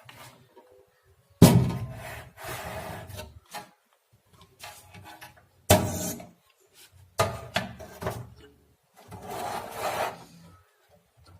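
Handling noise as a wired amplifier board is set back into the amplifier's cabinet: three sharp knocks, about one and a half, six and seven seconds in, with scraping and rubbing between them.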